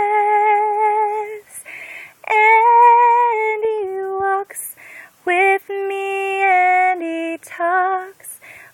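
A woman singing a hymn solo, without accompaniment, holding long sustained notes with short breaths between phrases.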